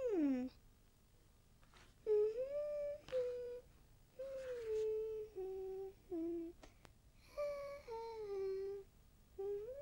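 A cartoon voice humming a wandering little tune in about eight short notes that slide up and down, with short gaps between them. A faint scratchy noise comes in twice, and there is one sharp click a little past the middle.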